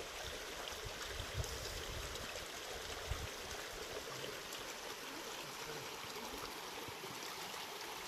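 Shallow mountain creek running over rocks and gravel, a steady, even babble of water.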